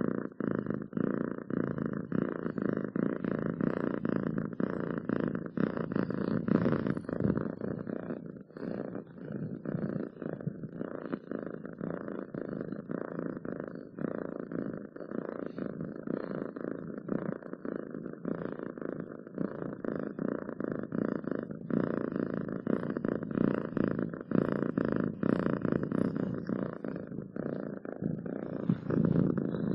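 Domestic cat purring continuously, a dense and even run of pulses that keeps going without a break.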